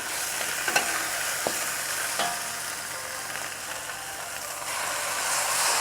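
Catfish pieces and spice paste sizzling in a hot pan as hot water is added, with a few light clicks of a utensil against the pan.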